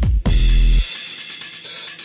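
Electronic dance music. The beat cuts out for a moment, a deep bass note holds for about half a second, and then the bass drops away, leaving lighter, quieter percussion.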